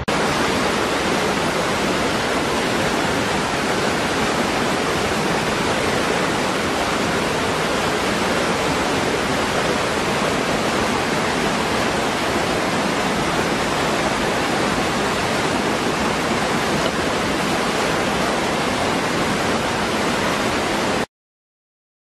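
Small waterfall pouring into a rocky pool: a steady, even rush of falling water that cuts off abruptly near the end.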